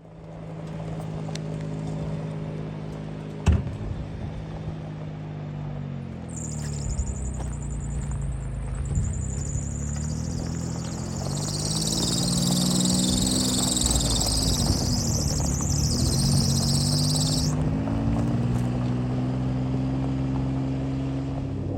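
Large diesel harvest machinery running, its engine pitch rising and falling several times. There is a sharp knock about three and a half seconds in, and a high hiss runs over it from about six seconds in until it cuts off suddenly near seventeen seconds.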